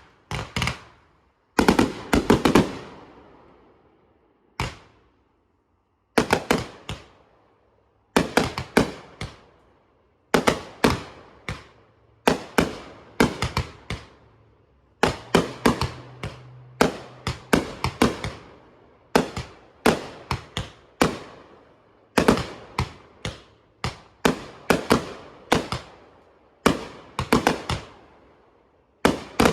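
Fireworks going off: a long run of sharp bangs and crackling reports in quick clusters, each trailing off in echo, with short pauses between volleys.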